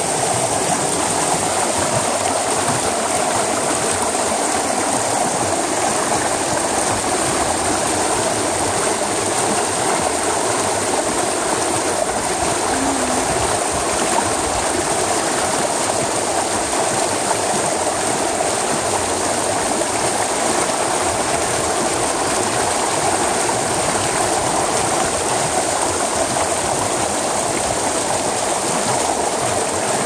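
Water rushing steadily down a concrete farm irrigation channel and tumbling white over rocks, with a waterfall-like sound.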